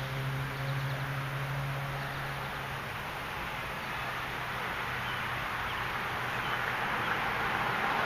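Steady outdoor background noise, a low hum fading out about three seconds in while a hiss-like haze swells toward the end; no ball strikes stand out.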